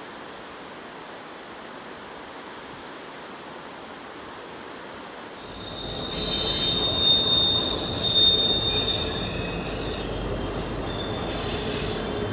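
A river rushing through rapids, then, about halfway through, a long freight train of double-stack container cars rolling into earshot. It makes a low rumble, with high-pitched squealing from steel wheels on the curving track, loudest a couple of seconds after the train arrives.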